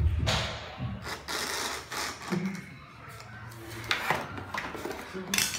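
A toothbrush scrubbing against a hinged plastic dental model, a scratchy hiss for the first couple of seconds, then a few sharp plastic clicks and taps from the model's jaws near the four-second mark and again near the end.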